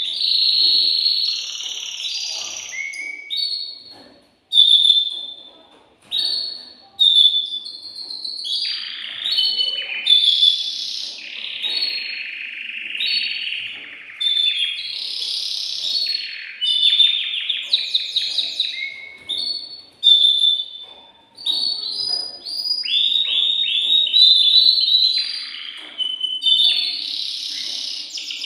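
Male domestic canary singing a long song of fast trills and whistled notes, broken by a few brief pauses.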